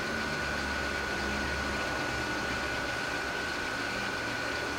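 Millport Model 2S vertical milling machine running, its two-speed three-phase motor turning the spindle with a steady hum and a constant high whine.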